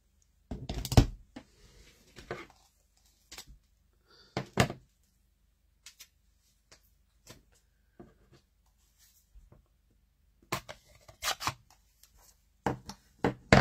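Scattered clicks and knocks of craft supplies being handled and rummaged, with a busier run of clicks near the end as a plastic stamp ink pad case is picked up and handled.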